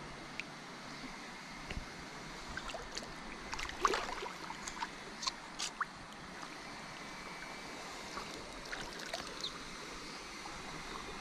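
River water flowing steadily, with a few short clicks and splashes about four to six seconds in.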